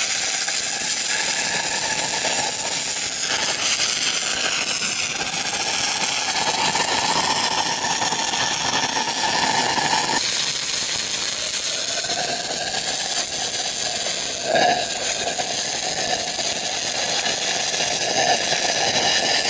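Stick (SMAW) welding arc running a root pass on small pipe: a steady crackling hiss as the electrode burns, with one sharper crack about 14 and a half seconds in.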